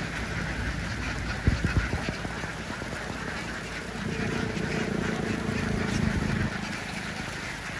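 A large flock of domestic ducks quacking together in a continuous dense din. A few sharp knocks come about a second and a half in, and a low steady hum joins from about four seconds to six and a half seconds in.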